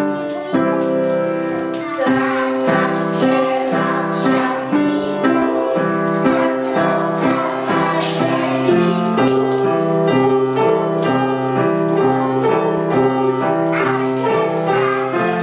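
Upright piano playing a song accompaniment, with a group of young children singing along from about two seconds in.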